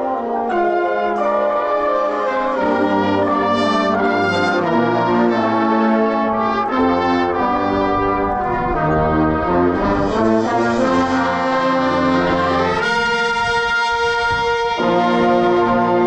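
Marching band brass section playing chords of its show music, trombones and trumpets over low brass. The chords change every second or so, and there is one loud held chord near the end.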